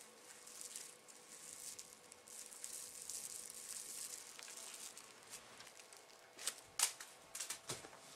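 Soft crinkling and rustling as cats play with a crinkly trash toy on a quilted bedspread, with a few sharper, louder crackles near the end.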